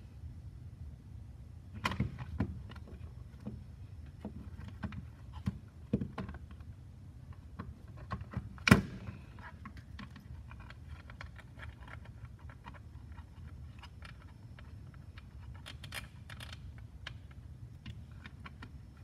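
Hard plastic clicks, taps and knocks of a ToolKitRC M4Q charger's case being handled and pressed back together, with small parts clattering on the mat; one sharper knock stands out about nine seconds in. A low steady hum runs underneath.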